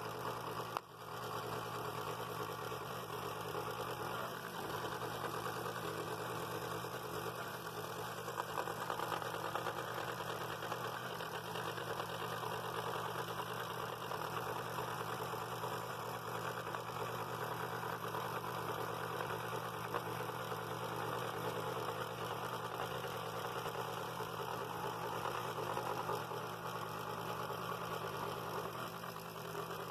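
Scroll saw running steadily, its reciprocating blade cutting through a wood blank as the piece is guided by hand; a steady motor hum under the cutting noise.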